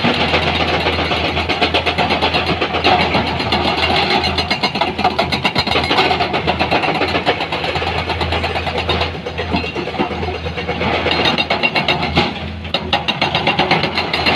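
Heavy construction-vehicle diesel engine running, a steady, dense rapid clatter over a low hum.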